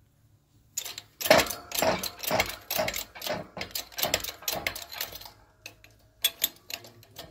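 Shop press being worked to push a bearing out of an ATV differential case: a steady run of mechanical strokes, about two a second, then a few sharp clicks near the end.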